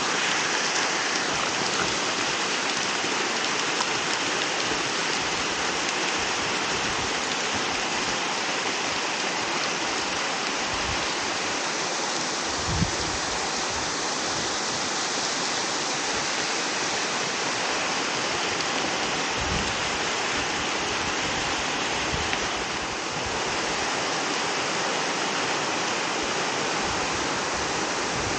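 Waterfall in a rainforest river gorge, falling water rushing in a steady, unbroken wash. A few brief low thumps come through, about halfway in and again a few seconds later.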